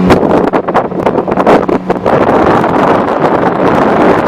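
Motorboat running underway, its engine hum half-buried under heavy wind buffeting on the microphone and rushing water. Irregular gusts and thuds in the first two seconds.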